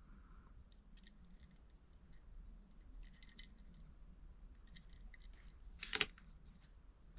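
Faint scattered clicks and light taps of small hard objects being handled, with one sharper click about six seconds in.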